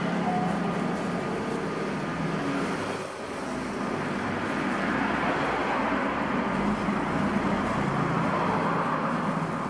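Steady street traffic noise, swelling from about five to nine seconds in.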